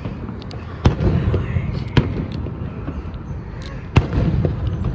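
Aerial fireworks shells bursting overhead: three sharp bangs, about a second in, at two seconds and near four seconds, with smaller pops and a low rumble between them.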